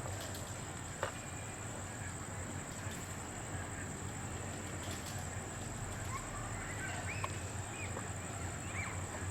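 Outdoor ambience of insects with a steady high-pitched trill. Several short bird chirps come near the end.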